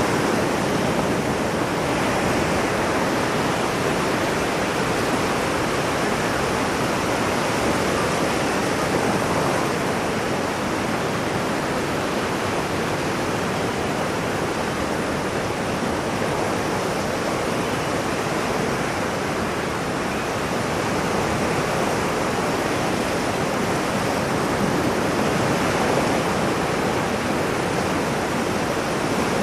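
Ocean surf: a steady rush of breaking and washing waves that swells and eases only slightly and slowly.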